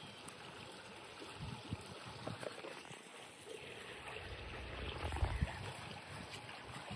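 Shallow creek water flowing and trickling steadily, with a low rumble swelling up about two-thirds of the way through.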